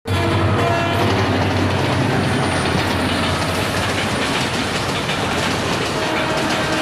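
Train passing close by: a diesel locomotive's engine hum in the first few seconds, then the cars' wheels clattering over the rail joints.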